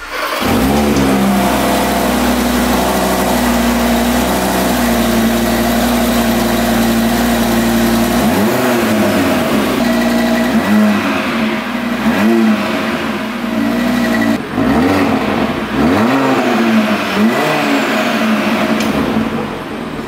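Audi RS Q3 Sportback's turbocharged 2.5 TFSI inline five-cylinder exhaust, idling steadily for about eight seconds, then revved in a series of short throttle blips, the pitch rising and falling with each one.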